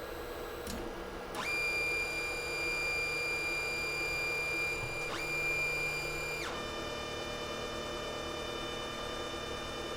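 Anycubic Chiron 3D printer's stepper motors whining as the axes move, a set of steady tones that jump to a higher, louder pitch about a second and a half in and shift again around five and six and a half seconds, over a steady hum.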